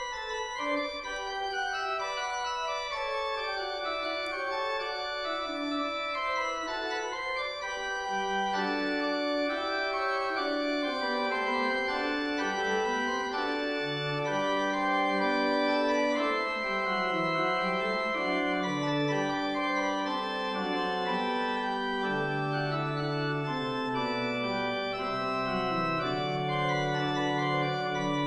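Organ playing slow, held chords, with lower bass notes coming in about eight seconds in and sinking deeper later on.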